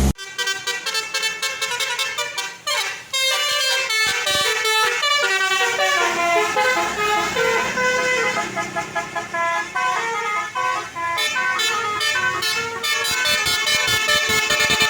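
Indonesian bus 'telolet' musical horn playing a fast tune of short, changing notes, with brief breaks between phrases.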